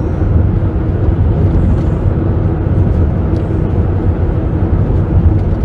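Steady low rumble of road and engine noise inside a moving minivan's cabin.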